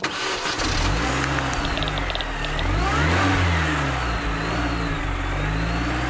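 Car engine revving, used as a sound effect under a logo animation. It starts abruptly, its pitch rises and falls several times with the biggest rev about halfway through, then it settles steadier.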